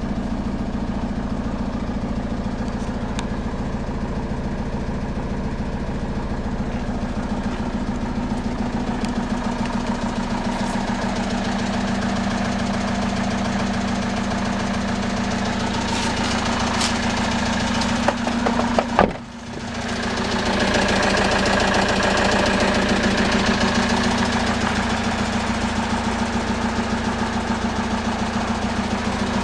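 Citroën Jumper 2.2 HDi four-cylinder turbodiesel idling steadily, with a few sharp clunks and a brief dip in level about two-thirds of the way through.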